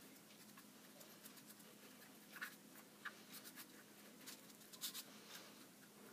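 Faint rustling and rubbing of a paper cutout as hands smooth and press it flat on a cutting board, with short scratchy brushes scattered through the second half.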